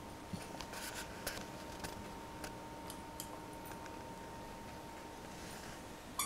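Puppy chewing and wrestling with a plush elephant toy: soft, scattered clicks and rustles of teeth and paws on the fabric, with a short squeak right at the end.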